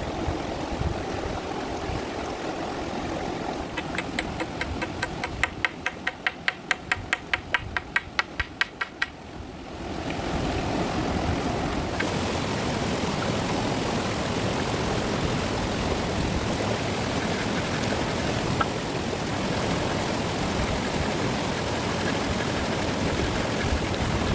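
Rushing river water, with an even run of sharp strokes, several a second, for about five seconds in the first half.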